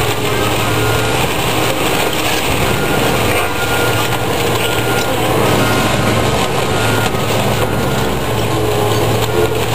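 Heavy tracked demolition machine's engine running steadily while it crushes a wooden building, with wood cracking and splintering over the engine.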